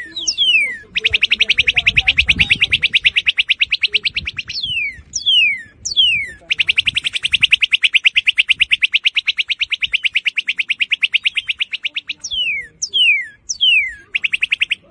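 Northern cardinal singing: loud, clear downslurred whistles alternating with long, very rapid trills of repeated notes. A trill starts about a second in and runs for a few seconds, a longer one follows about halfway through, and a short one comes right at the end.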